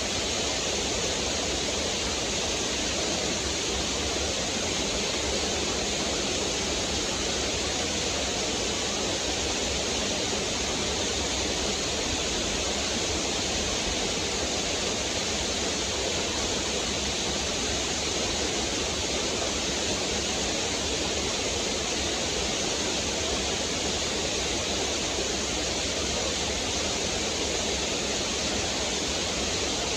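Small waterfall pouring over rocks into a stream, a steady rushing of water.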